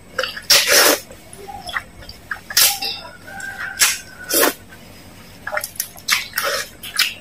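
Noodles being slurped and chewed close to the microphone: a series of short, wet slurps, the longest about half a second in.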